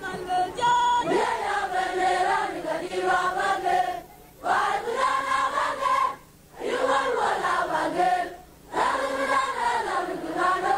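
A large group of voices singing a song together, in phrases broken by short breaks about four, six and eight and a half seconds in.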